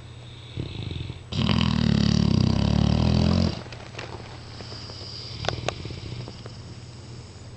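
Mastiff snoring: a short, softer snore about half a second in, then one loud snore lasting about two seconds, followed by quieter breathing and two short clicks.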